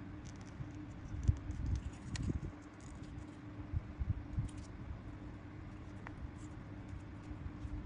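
Fingers handling and bending a small strip of thin plastic on a wire while shaping a homemade pinwheel-lure blade: light scratches, small clicks and a few soft knocks, the firmest about a second in. A steady low hum runs underneath.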